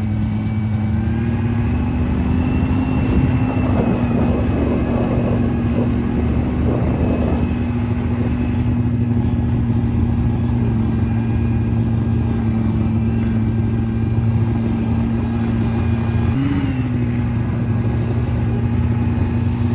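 Snowmobile engine running at a steady cruising speed, with a brief rise in pitch about 16 seconds in. A scratchy rustling noise sits on top of it for a few seconds early on.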